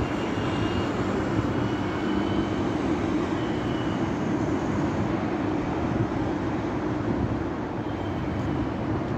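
Steady low rumble of city traffic, with no single vehicle standing out.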